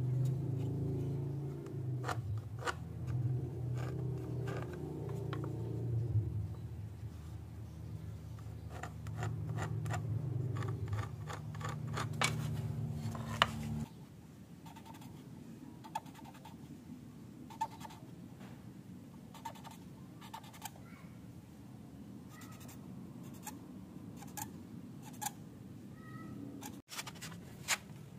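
Marker pen drawing short strokes on bare wood, a run of quick scratchy marks, over a low steady hum that cuts off abruptly about halfway through; the marks continue more sparsely afterwards.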